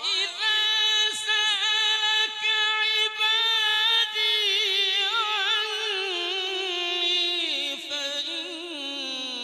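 A male Quran reciter's voice holding one long, ornamented melodic note in tajweed style, wavering around a high pitch and then stepping down lower near the end.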